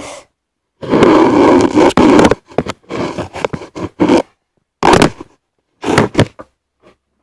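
Loud scraping and rubbing handling noise on the camera's microphone as the camera is moved about. It comes as one long stretch and then several shorter bursts, with sharp clicks among them.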